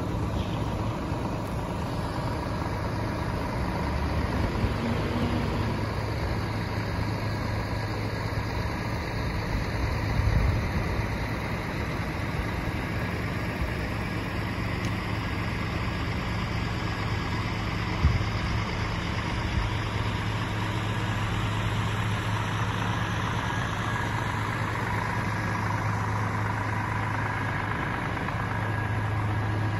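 Scania S450 truck's 13-litre six-cylinder diesel engine idling steadily, with a short swell about ten seconds in and a single sharp click at about eighteen seconds.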